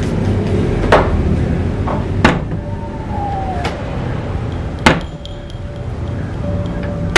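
A fist knocking on an old wooden door: a handful of slow, irregular single knocks, one every second or two, over a low steady rumble.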